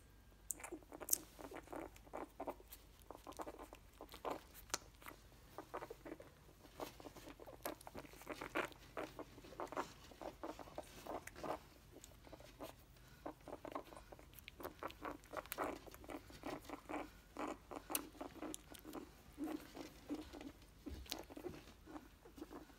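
Newborn Bouvier des Flandres puppies suckling at their mother: a soft, continual run of wet smacking and clicking, several a second.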